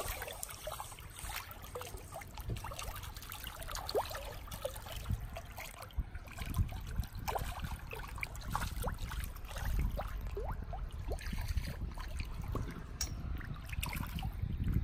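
Water trickling and lapping, with many small, quick splashes as a dense crowd of sturgeon and golden trout stirs at the surface. A low rumble runs underneath.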